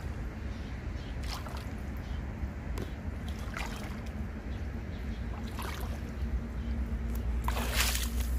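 Footsteps sinking into soft, muddy pond-bottom ground, with a few soft sloshing steps and a louder rustle near the end, over a steady low rumble.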